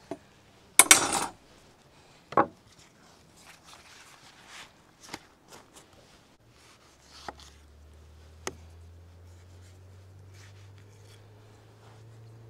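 Metal kebab skewer pulled out of lavash-wrapped grilled fish: a short, loud scraping rasp about a second in, then a knock on the wooden table. Soft rustles and small clicks follow as the flatbread is folded on a wooden cutting board, and a faint low drone comes in about halfway through.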